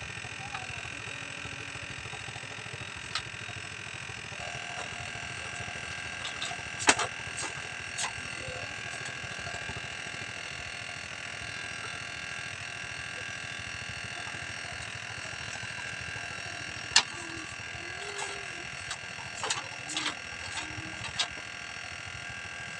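A steady mechanical hum with a scattering of sharp clicks and knocks, a few of them close together near the end.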